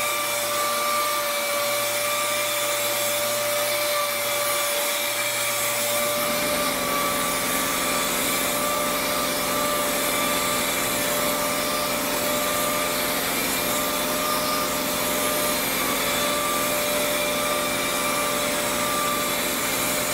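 Air-powered random orbital sander with a 3M Hookit pad and 600-grit paper running steadily with a high whine, scuffing the painted surface of a fiberglass truck cap to prepare it for paint. A lower hum joins about six seconds in.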